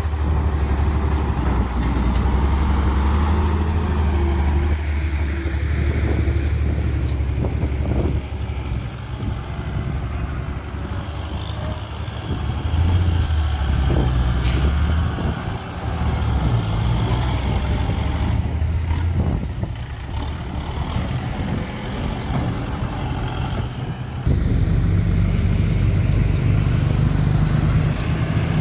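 Heavy diesel engines of a tractor and a truck working in mud. Their note rises and falls with the load and grows louder again near the end. A brief sharp noise comes about halfway through.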